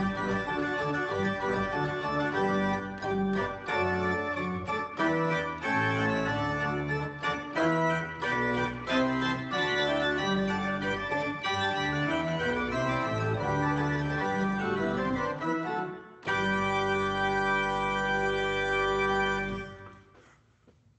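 Pipe organ playing full, moving chords with a strong bass. About sixteen seconds in there is a short break, then a final chord is held for about three seconds and released, ending the piece with a brief fade.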